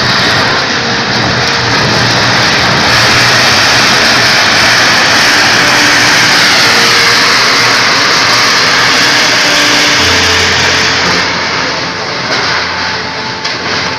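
A vehicle's engine running hard under load, with a loud steady rushing noise that eases a little about eleven seconds in.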